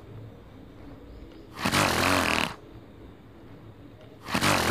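Donkey braying: loud harsh calls about every two and a half seconds, one in the middle and another starting near the end.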